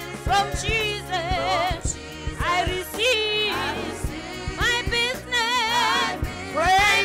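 Gospel song: voices singing with wavering vibrato over instrumental backing with a low bass and percussion hits.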